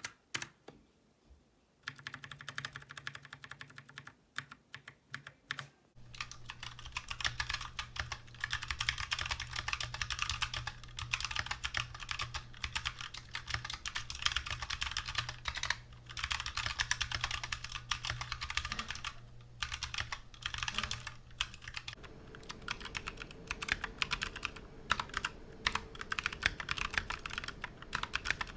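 Fast typing on a 60% mechanical keyboard whose switches have been brushed with Krytox lube: a dense run of keystroke clicks and clacks. The keystrokes are scattered for the first few seconds and become continuous from about six seconds in.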